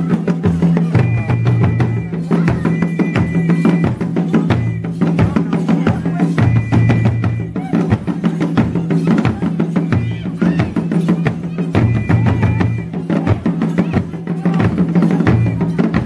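Drum music with a steady, repeating low beat and a dense patter of quick percussive strokes, with a short high held tone that comes back several times.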